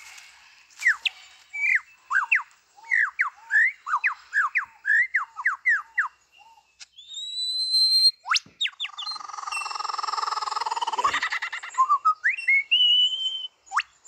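Superb lyrebird singing, mimicking the calls of other forest birds. It starts with a quick run of whistled downward-sweeping notes, then rising whistles and a sharp whip-like sweep, then a harsh rattling chatter, and ends on rising whistles.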